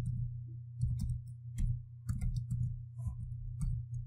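Computer keyboard typing: a run of irregular, quick keystrokes over a steady low hum.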